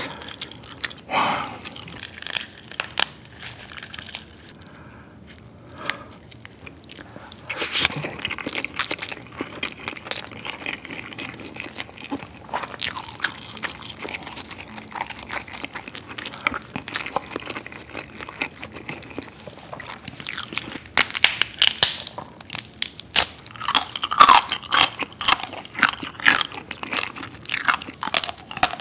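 Close-miked eating of marinated raw crab (gejang): biting and chewing crab and rice, with many sharp wet clicks and crackles that grow denser and louder in the last third.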